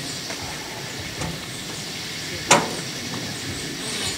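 Steady hissing outdoor background noise, with one sharp knock about two and a half seconds in.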